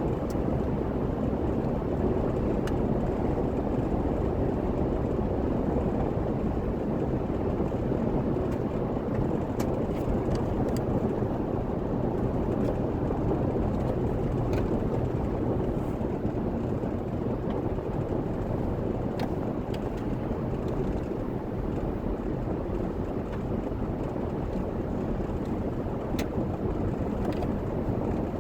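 Steady road and engine noise of a vehicle cruising along, with a few faint clicks.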